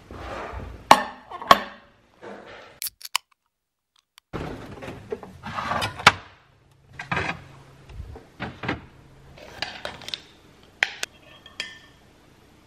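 Kitchen handling clatter: jars and containers knocking and clinking as a glass yogurt jar is taken out of a crowded fridge and its lid twisted off at the counter. A series of separate sharp knocks and clinks with rustling between them, broken by a silent gap about three seconds in.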